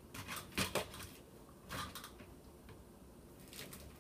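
A box of chocolates being handled: short crinkling rustles of its plastic tray as chocolates are picked out, several times over.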